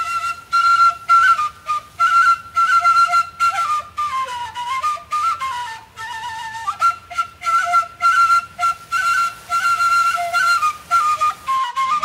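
Background music: a single high melody line stepping up and down over a steady rhythmic beat.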